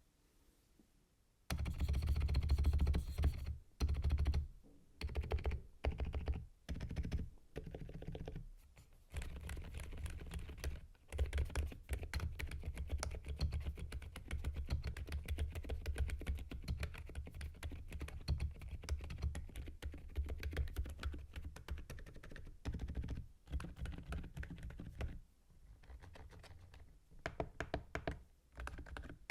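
Typing on a GMK87 mechanical keyboard fitted with Akko Fairy Silent linear switches and PBT keycaps: a fast stream of keystrokes in bursts with short pauses, starting about a second and a half in.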